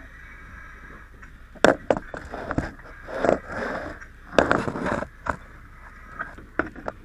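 A run of knocks and scraping, as of gear and tools being handled at close range. It is loudest about one and a half seconds in and again around four and a half seconds in, with a few scattered clicks after.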